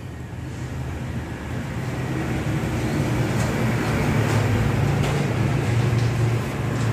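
A steady low engine rumble that grows gradually louder, with a few faint clicks.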